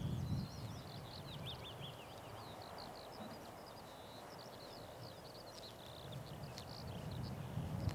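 Small songbirds singing, a dense run of quick high chirps throughout, with wind rumbling on the microphone at the start and again near the end.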